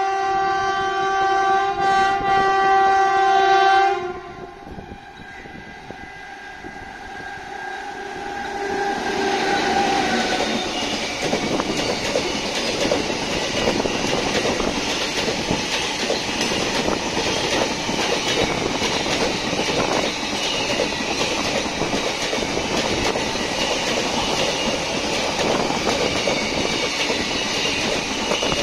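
Indian Railways WAG-7 electric locomotive's horn sounding as the train approaches, a loud chord of several tones that cuts off about four seconds in. After a short lull, a container freight train passes at speed, a steady rushing clatter of wheels on rails from the long string of container wagons.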